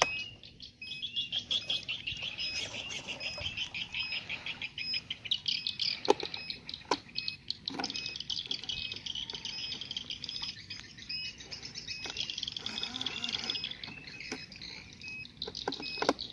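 Birds chirping continuously, with a few short sharp knocks between about six and eight seconds in.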